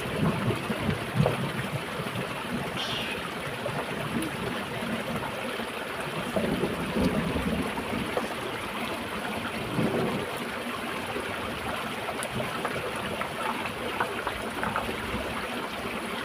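Shallow stream running steadily over stones, with a few short splashes as a hand works in the water.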